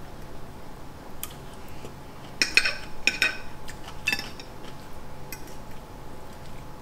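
Forks clinking against plates, a few scattered light clicks with a louder run of clinks about two and a half to three seconds in.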